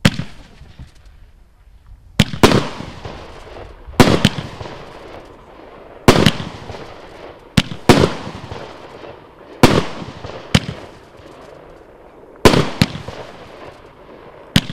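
Pangu Fireworks 'Powder Star' firework cake firing shot after shot. Sharp bangs come about every two seconds, often two in quick succession, and each one trails off.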